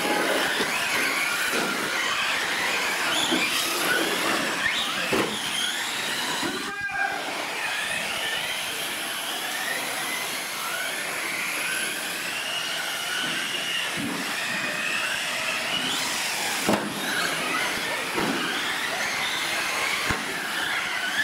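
Several radio-controlled trucks racing, their motors whining with the pitch rising and falling as the throttle opens and closes. A few sharp knocks come now and then.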